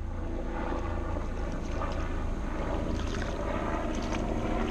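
Helicopter flying over, a steady low drone of engine and rotor that swells slightly. A hooked crappie splashes at the surface near the end.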